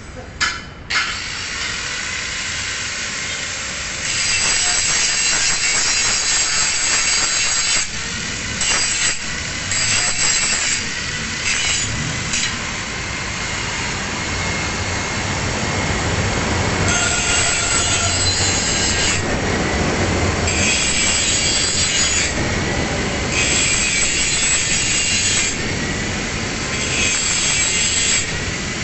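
Angle grinder grinding a single bevel on the edge of a steel plate, a harsh hissing grind that swells and drops back every few seconds as the disc bites and eases off. A couple of sharp knocks in the first second.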